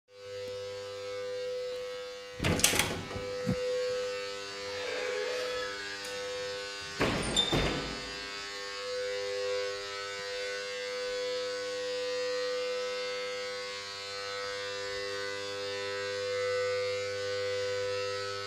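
A steady electrical-sounding hum of unknown origin in an apartment-building stairwell, made of several steady tones. It is broken by two loud knocks, one about two and a half seconds in and one about seven seconds in.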